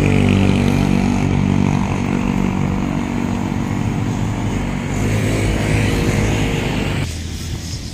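A motor vehicle's engine running steadily close by, with traffic noise, dropping away about seven seconds in.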